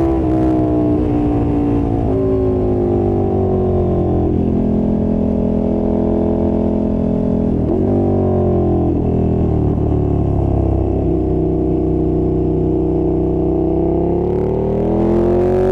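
2020 KTM 1290 Super Duke R's V-twin engine under way. Engine speed falls over the first few seconds with a couple of brief steps, as on downshifts. It holds fairly steady, dips and picks up sharply about eight seconds in, then climbs again near the end as the bike accelerates.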